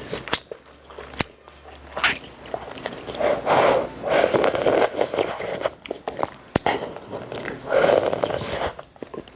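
A person eating close to the microphone: biting and chewing food in irregular bursts, the loudest a few seconds in and near the end, with sharp clicks between.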